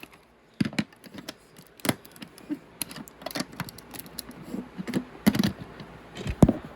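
Irregular clicks, taps and rattles of a LEGO set's box and its plastic bags of bricks being handled, with several sharper knocks.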